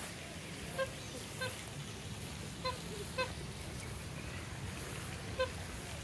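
A bird giving five short pitched calls, spaced unevenly, over a steady low background rumble.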